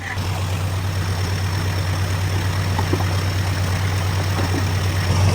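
A car engine idling steadily, a low even hum with no revving.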